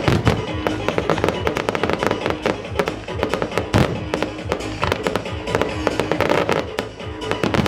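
Fireworks display: dense, rapid crackling and banging of aerial shells and ground fountains, with the strongest bang about four seconds in, over music.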